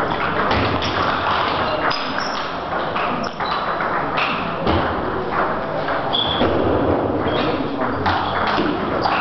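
Table tennis ball hit back and forth in a rally, sharp clicks of the ball off the rackets and the table at an irregular pace, over the steady noise of a large hall.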